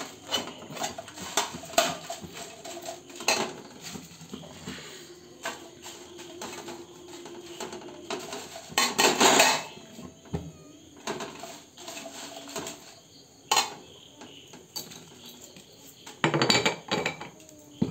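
Metal kitchen utensils and dishes clattering and clinking, a string of irregular knocks with louder bursts about halfway through and near the end.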